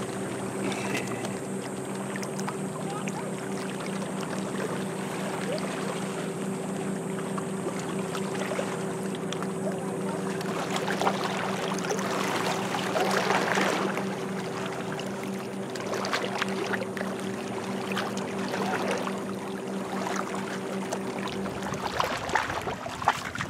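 A boat's motor running at a steady low hum out on the lake, stopping near the end, over a wash of wind noise.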